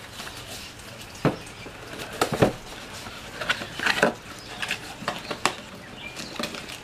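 Cardboard boxes and packaging being handled: a series of light knocks, scrapes and rustles as small boxes are lifted and shifted inside a carton, sharpest about a second in, around two and a half seconds in and at about four seconds.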